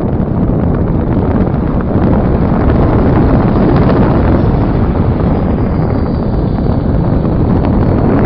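Steady rush of airflow buffeting a phone microphone carried on board a flying RC glider, getting a little louder about two seconds in.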